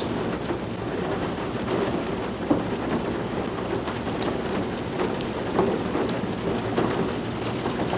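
Steady rushing noise of a severe thunderstorm, wind and rain hissing on the microphone, with a few faint ticks.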